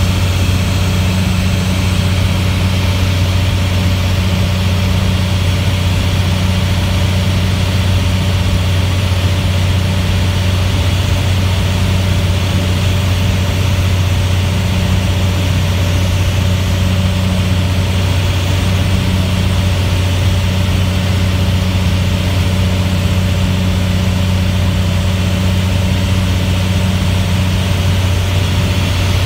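Steady engine and airflow drone heard from inside a small aircraft's cabin in level flight: a loud, constant low hum with a fainter overtone above it and a rushing hiss over the top.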